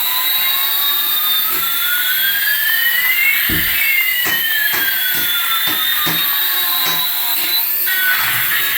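Two electronic whining tones sweep across each other, one rising steadily in pitch while the other falls, over faint short clicks.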